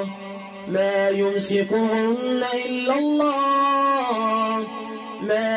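Quran recitation in a slow, melodic tajweed chant: a single voice holding long drawn-out notes that slide between pitches. It enters after a brief pause near the start and softens for about a second near the end.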